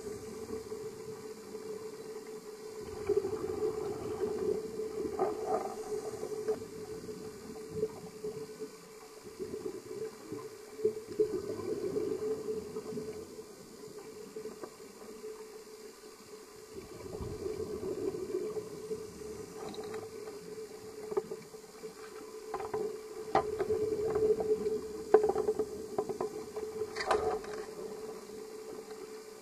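Underwater sound picked up by a dive camera: swells of bubbling from a scuba diver's exhalations every several seconds, over a steady hum, with scattered sharp clicks.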